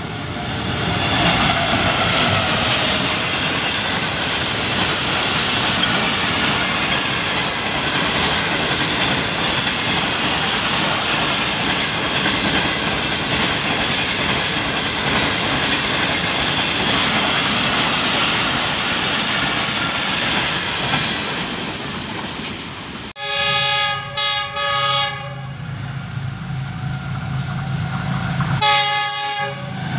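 A diesel-hauled passenger train running through at speed, a steady loud noise of coaches and wheels on the rails for about twenty-three seconds. It breaks off suddenly, and a diesel locomotive's multi-note horn sounds in short broken blasts, then once more near the end.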